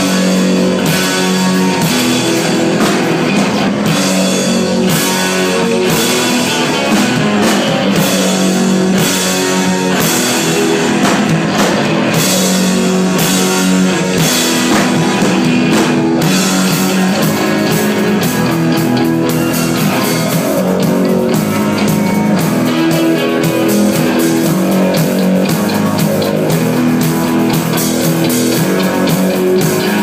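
Live rock band playing loudly without vocals: electric guitar over a drum kit with steady beats, plus held keyboard or electronic notes.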